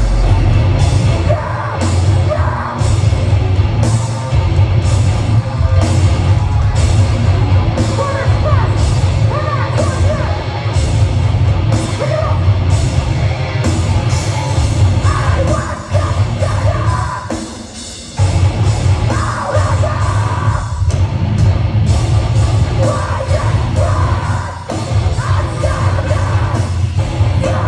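A heavy metal band playing live and loud, with yelled vocals over heavy bass and steady drum hits. About two-thirds of the way through the music drops out briefly, then kicks back in.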